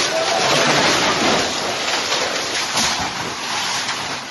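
Two-storey building collapsing: a long, loud crash of falling masonry and concrete, with the rush of the dust cloud on the phone microphone, starting suddenly and dying down near the end.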